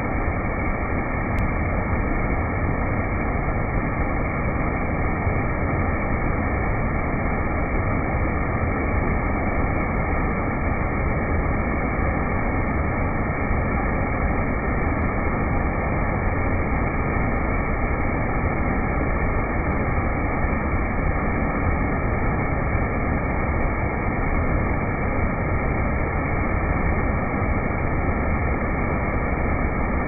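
Cascading waterfall: a steady rush of water, even and unbroken, sounding dull and muffled.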